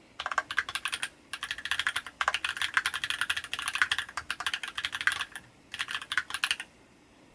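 Fast typing on a mechanical keyboard with lubed Holy Panda tactile switches, a brass-reinforced Monstargear ALU XO V2 case and PBT keycaps: dense clacking keystrokes in three runs with short pauses, stopping a little before the end.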